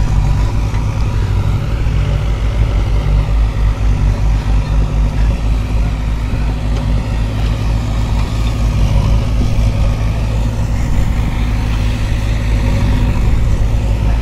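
Diesel engine of earthmoving machinery running steadily while levelling and filling ground, a continuous low hum.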